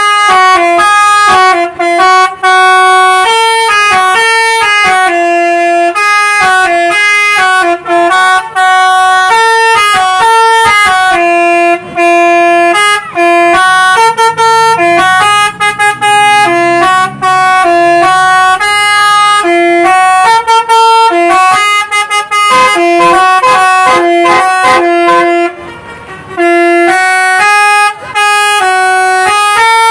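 Basuri telolet horn, a multi-tone bus air horn, playing a long tune of stepped notes that jump up and down in pitch, with only brief breaks between phrases.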